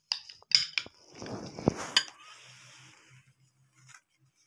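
Clinks and knocks of a glass mixing bowl and spoons being handled, with a short scraping rustle in the middle ending in two sharp knocks.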